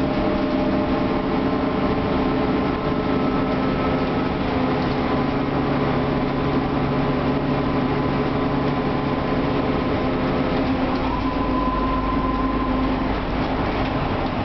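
Mercedes-Benz O500LE city bus driving, its Euro 3 diesel engine and ZF six-speed gearbox running steadily, heard from inside the passenger cabin. About eleven seconds in, a deeper rumble and a higher whine come in.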